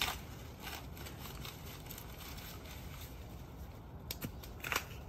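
Rustling and cracking of corn stalks, leaves and husks being handled and snapped by hand, with a sharp crack at the start and another near the end.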